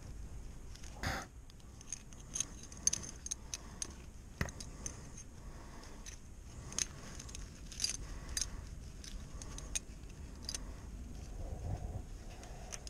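Metal oil filter removal tool clinking and jangling against the oil filter, in irregular small clicks and rattles, with a louder knock about a second in and a sharp click a few seconds later.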